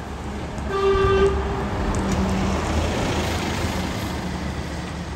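A vehicle horn gives one short toot about a second in, while an Alexander Dennis Enviro400H hybrid double-decker bus drives past, its engine and tyre noise swelling and then fading.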